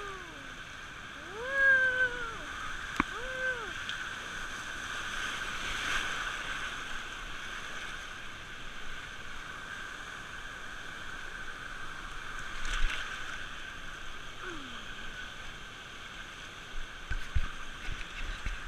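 Water rushing and splashing down a water-park tube slide, a steady wash throughout. A few short rising-and-falling pitched sounds come in the first four seconds.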